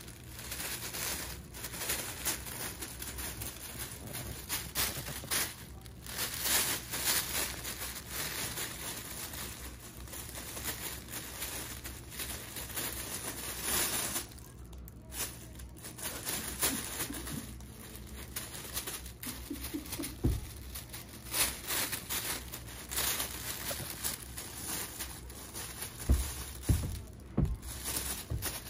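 Mylar space blanket crinkling and crackling as a puppy walks and pounces on it, with a short lull about halfway through and a few soft thumps near the end.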